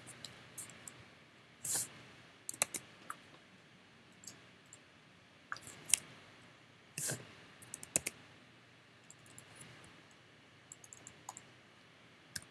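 Scattered clicks of a computer mouse and keyboard keys, singly and in short clusters every second or two, over a quiet room background.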